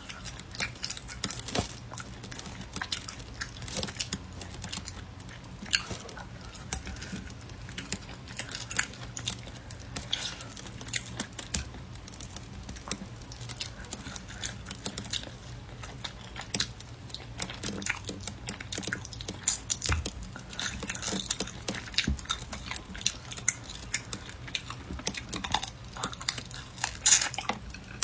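Close-miked chewing and biting of dry, chewy rabbit meat, with many short irregular mouth clicks and crackles as the meat is torn apart by hand and eaten.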